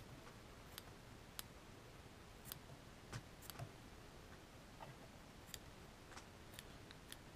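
Small fly-tying scissors snipping egg yarn: faint, irregular clicks, about ten of them, as a Glo Bug egg fly is trimmed round.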